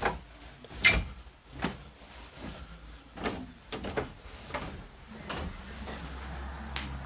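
Footsteps going down a wooden staircase and onward across a wooden floor: a series of knocks about every half to one second, the heaviest about a second in.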